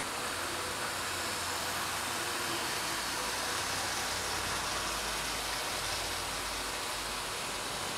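00 gauge model trains running on the layout's track: a steady, even running noise with no distinct clicks or rail joints standing out.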